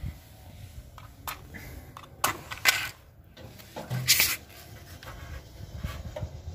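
Several sharp clicks and short scrapes at a gas geyser's pilot burner as the pilot is lit by hand, the loudest near the middle, over a low rumble.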